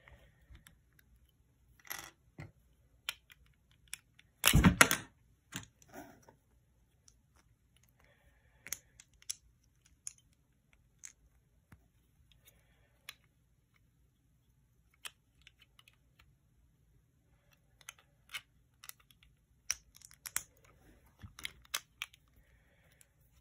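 Plastic LEGO bricks and Technic parts clicking and clattering as hands handle them and fit them together, in scattered short clicks, with a louder burst of clatter about four and a half seconds in and a busier run of clicks near the end.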